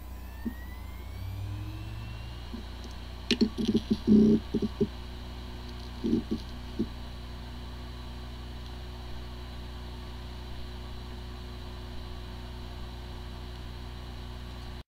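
Hard drive with corrupted firmware powering up: a rising whine as it spins up, a cluster of head ticks and knocks about three to five seconds in and a few more around six seconds, then a steady running hum. It sounds like a good hard drive, though the computer cannot detect it, the symptom of disk firmware corruption.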